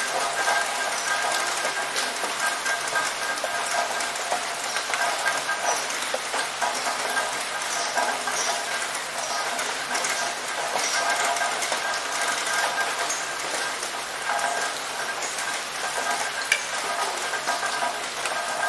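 Steady rain falling on a hard surface: a dense hiss of drops with many small ticks and splashes.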